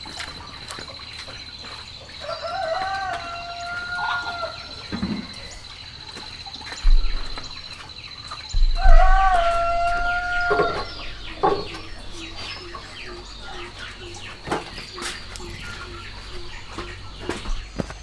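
A rooster crowing twice, each crow a long held call of about two seconds, the second about six seconds after the first.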